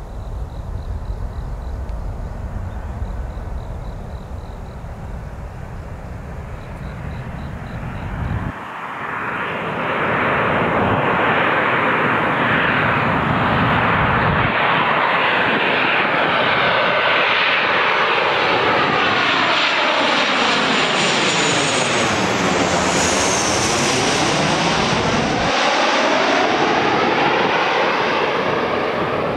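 Boeing 737-800 jet airliner on landing approach, its CFM56 turbofans growing loud about a third of the way in as it nears and passes overhead. Its high fan whine drops in pitch as it goes over, and the jet noise stays loud as it moves away.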